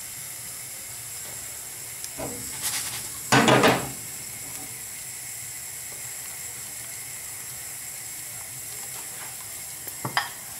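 Oatcake batter frying in olive oil in a hot frying pan, a steady soft sizzling hiss. A brief louder noise stands out a little over three seconds in, and there are a few clicks near the end.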